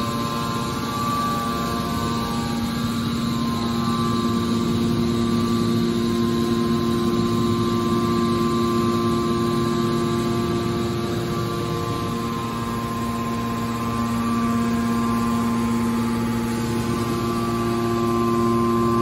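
Electric motor and hydraulic pump of a scrap metal baler's power unit running with a steady hum, several held tones over a noisy mechanical drone.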